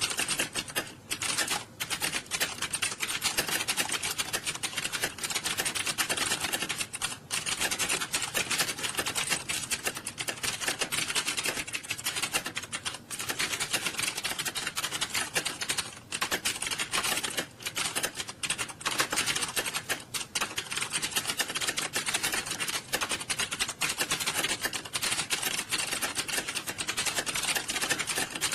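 Many computer keyboards being typed on fast at once, a dense, unbroken clatter of key clicks with only brief momentary lulls.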